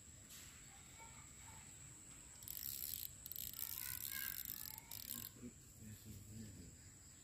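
Rustling, scraping handling noise in three short bursts about a third of the way in, as a long flexible fishing pole is swung out over still water. A faint steady high whine sounds throughout.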